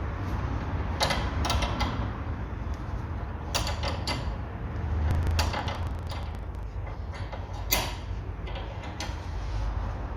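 Ratchet wrench and metal tools clicking and scraping in irregular bursts as the lower nut of a stabilizer bar link is fitted and tightened, with a run of quick ratchet-like clicks partway through and a steady low hum underneath.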